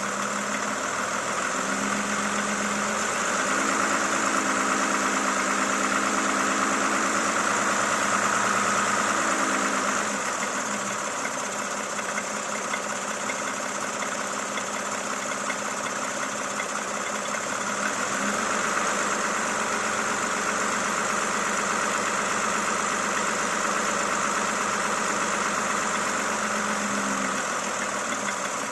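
Toyota Camry XV70 3.5-litre V6 engine running, with the knock in the engine that the owner has recorded it for. It gets a little louder twice, for several seconds each time.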